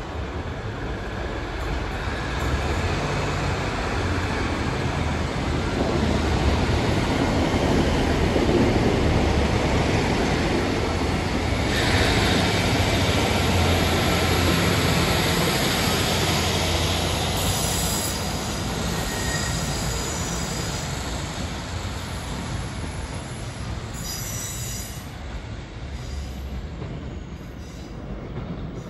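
Diesel multiple unit running past on the track beside the platform: engine and wheel noise builds as it nears, is loudest as it passes, then fades as it draws away. Brief high-pitched squeals come from the wheels in the second half.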